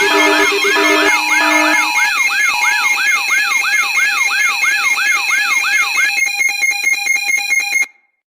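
Loud layered electronic alarm tones: rising whoops repeating about two to three times a second over steady and beeping tones. About six seconds in this changes to a rapid pulsing tone, which cuts off suddenly near the end.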